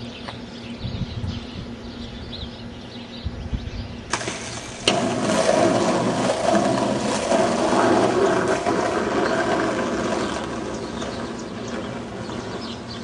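A sharp clack about five seconds in, then skateboard wheels rolling on asphalt: a steady rumble that fades toward the end.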